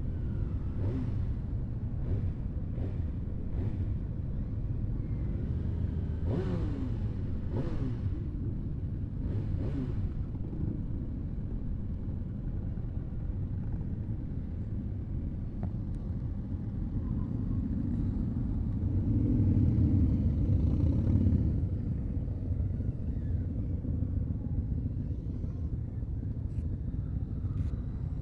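Motorcycle engines running at low speed in a group of bikes, a steady low rumble with a few brief changes in engine pitch in the first ten seconds. The sound swells louder for a few seconds about twenty seconds in.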